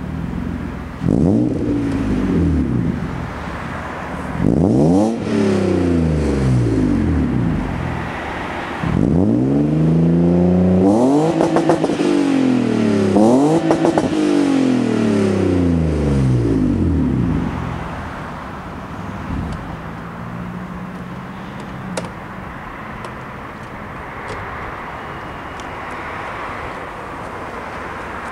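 BMW M50B25 2.5-litre inline-six with a straight-piped exhaust, revved several times: each rev climbs and falls back to idle. After about seventeen seconds it settles to a steady idle.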